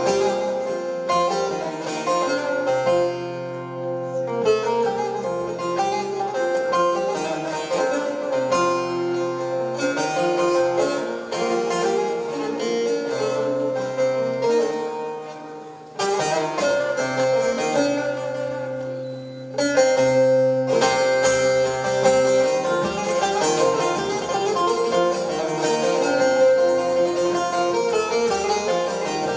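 Bağlama (Turkish long-necked saz) played solo: quick plucked melody runs over a steady drone of open strings, with a brief drop in loudness about halfway through before the playing picks up again.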